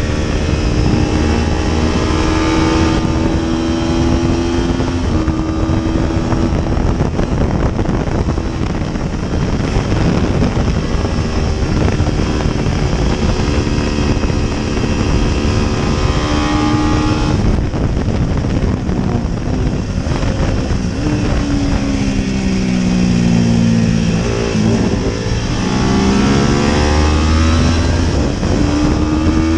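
Paton 500 GP racing motorcycle engine at race speed, heard from onboard under heavy wind rush, its revs climbing and dropping back again and again with gear changes. About three quarters of the way through the revs fall away as it slows, then climb again as it accelerates.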